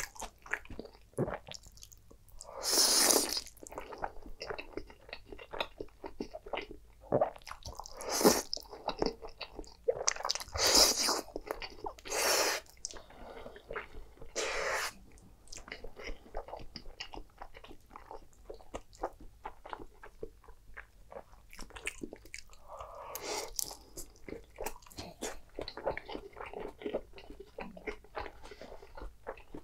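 Close-miked eating of spaghetti in a creamy shrimp sauce. About five loud slurps of noodles come in the first half. After that, soft wet chewing clicks continue to the end.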